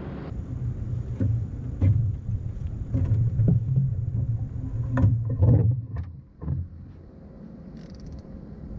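Heavy thumps and knocks of someone moving about a boat deck and lifting a fishing rod out of its rack holder, loudest about five seconds in, then a brief faint swish about eight seconds in as the rod is swung back to cast.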